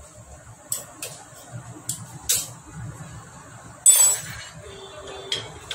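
Hand tools clinking and tapping against metal scooter engine parts: about six sharp metallic clinks, the loudest about four seconds in with a short ring.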